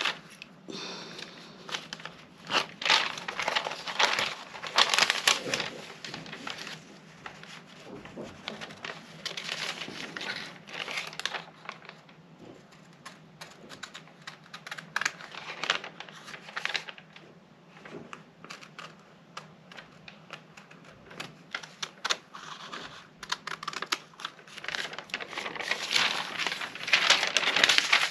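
Paper pattern sheets being handled and smoothed, rustling and crinkling in irregular bursts that are loudest near the start and again near the end.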